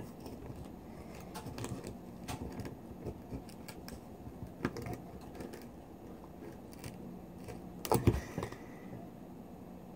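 Serrated knife scraping and clicking against a pearl oyster's shell as the blade is worked into it, the shell resisting. About eight seconds in there is a louder knock as the knife is jabbed down into the shell.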